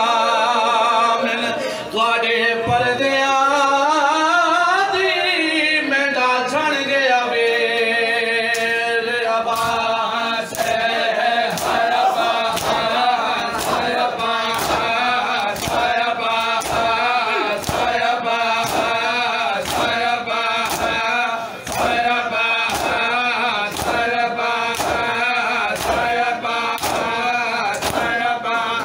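Men chanting a noha in chorus, with the steady slap of open hands beating on bare chests (matam) joining in about ten seconds in and keeping time with the chant.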